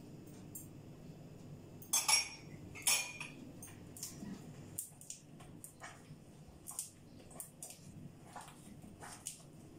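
Pizza dough being kneaded by hand in a stainless steel bowl, the bowl knocking and clinking as it is worked. Two louder metallic clanks come about two and three seconds in, then lighter irregular knocks.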